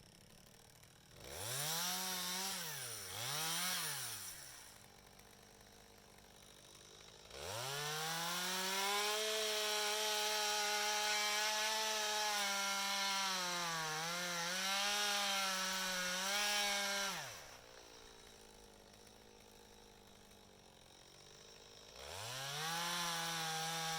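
Two-stroke chainsaw revving twice in quick succession, then held at full throttle for about ten seconds while cutting into an oak, its pitch dipping briefly a couple of times as the chain loads in the wood. It drops back to a low idle, then revs up again near the end.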